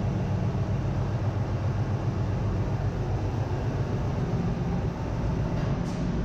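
Steady low drone of running machinery in a ship's engine room, heard from inside the main engine's open crankcase.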